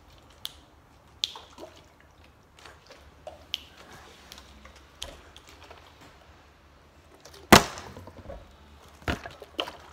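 A part-filled plastic water bottle being tossed in a flip, with small taps and handling noises, then hitting the table with one loud knock about seven and a half seconds in. A couple of lighter knocks follow as it fails to stay upright.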